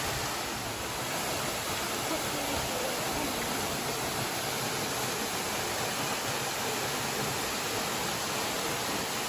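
Steady rushing roar of a waterfall, an even wash of falling water with no change in level.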